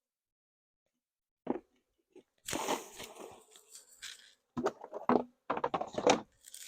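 Hive tool prying and scraping frames apart in a beehive, cracking through the propolis and wax that glue them: a single click, then a run of crunching, tearing scrapes with several short sharp strokes near the end.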